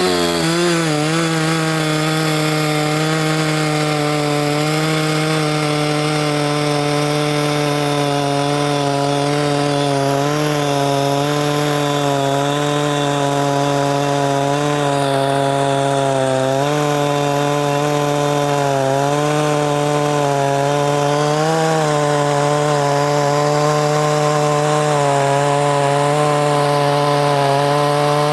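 Huyosen 6524 chainsaw, a Husqvarna 365 clone with a two-stroke engine, running steadily at high revs, its pitch wavering slightly now and then.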